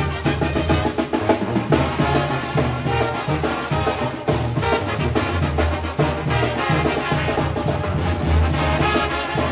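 Mexican banda music: a brass band with drums and percussion playing over a steady low bass line.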